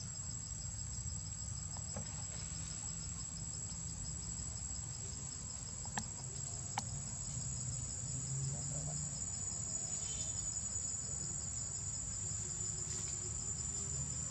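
Steady, shrill insect chorus: one continuous high trill with a rapidly pulsing tone just beneath it. Two faint clicks come about six and seven seconds in.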